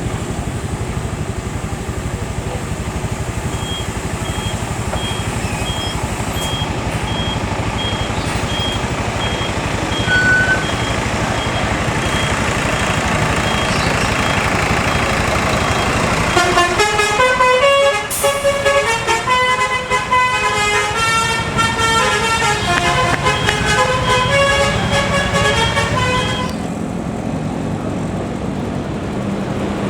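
Bus running with steady engine and road noise, then about halfway through its Basuri telolet multi-tone horn plays a tune of stepped notes for about ten seconds before stopping.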